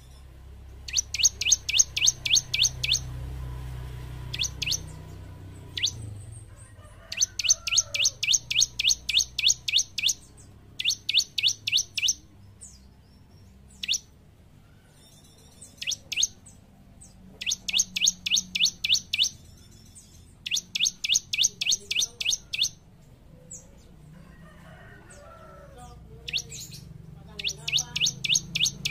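Bar-winged prinia (ciblek) singing in bursts of rapid, evenly repeated high chirps, about seven a second. Each burst lasts one to three seconds, with short pauses and a few single notes between.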